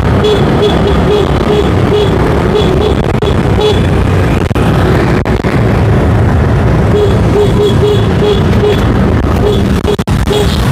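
A motorbike convoy on the move: steady engine and wind noise from riding among many scooters, with a quick run of short repeated tones, about three or four a second, for the first few seconds and again in the second half.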